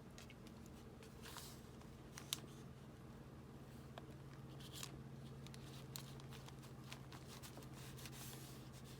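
Faint, occasional rustles and small taps of paper being handled and pressed down during gluing, over a steady low electrical hum.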